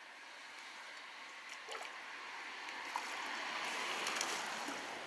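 Water gurgling and splashing, growing louder, with a few faint clicks.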